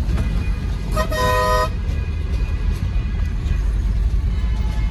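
A vehicle horn sounds about a second in, a very short toot followed by a longer one of about half a second, with several notes at once, over the steady low rumble of a moving truck's engine and road noise heard from inside the cab.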